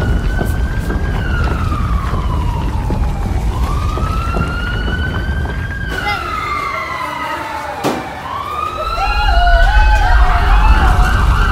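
A siren wails, its pitch rising and falling slowly about every five seconds, over a steady low rumble. Near the end a second, faster-wavering tone joins in and the sound grows louder.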